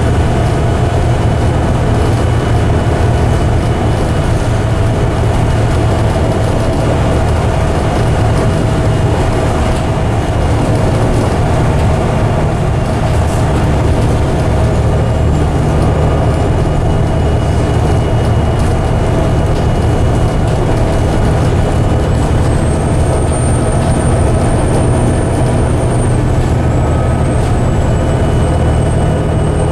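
Volvo D7C Euro 2 diesel of a Volvo B7TL double-decker bus running steadily at an even engine note with no gear changes, heard from inside the upper deck. A high whine joins about two-thirds of the way through.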